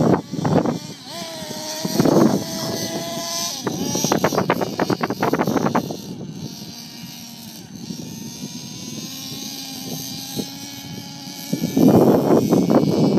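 RC monster truck running laps on dirt and gravel, its motor buzzing and rising and falling in pitch as it accelerates and slows, with loud rough bursts about two seconds in and again near the end.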